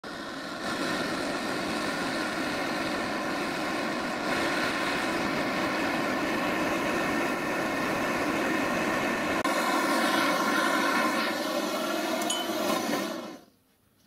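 Gas blowtorch flame burning steadily as it heats a brass adapter being silver soldered onto a speedometer inner cable. About nine seconds in its sound thins and brightens, and the flame stops shortly before the end.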